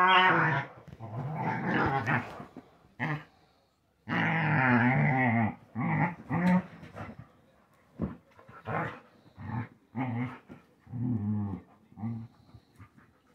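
Dogs growling as they wrestle in play, a run of short growls with one long growl about four seconds in.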